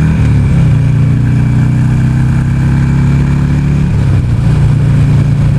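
Buell Ulysses 1200cc V-twin motorcycle engine running steadily at cruising speed on the road. Its note wavers briefly about four seconds in.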